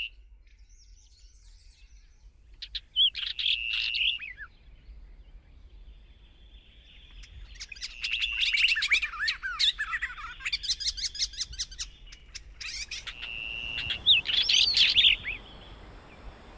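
Birds singing: clear whistled notes and fast, twittering chirps, coming in three bursts with short pauses between.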